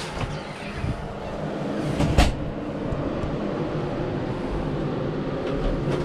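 RV bathroom door pushed open by hand: a rumbling as it moves, with one sharp knock about two seconds in.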